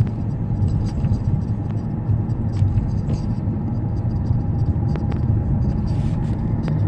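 BMW E38 on the move, a steady low rumble with scattered faint short knocks, which the owner puts down to a failed rear shock absorber top mount.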